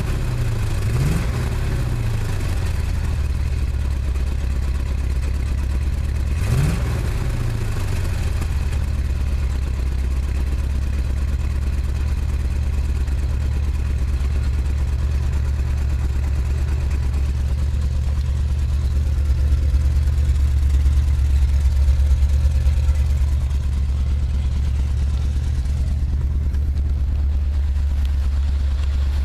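Chevy 350 small-block V8 idling steadily, blipped briefly twice, about a second in and at around six and a half seconds. The engine has a nagging misfire.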